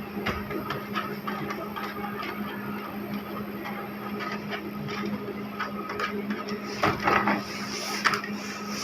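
Irregular small clicks and scrapes of hands and a screwdriver working on a plastic computer casing, a little louder about seven seconds in, over a steady low hum.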